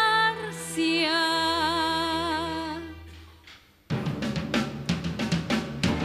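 Live orchestral music. A held melody note with vibrato fades into a brief hush. About four seconds in, the full ensemble comes in suddenly and loudly over a steady percussive beat.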